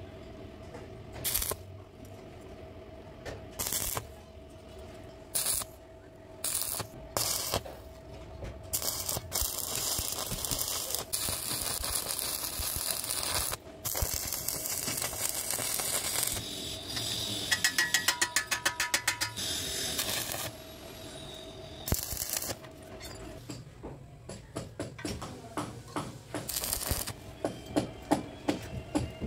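Stick (arc) welding on steel plate: several short bursts of arc crackle as tacks are struck, then a long steady crackling weld bead. A quick run of sharp metal taps comes in the middle, and scattered clicks and taps fill the end.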